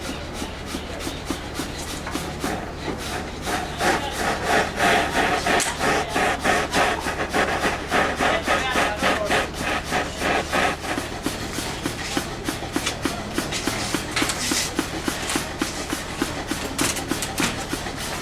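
Hand tool worked back and forth on metal in quick, even strokes, several a second, loudest in the middle of the stretch.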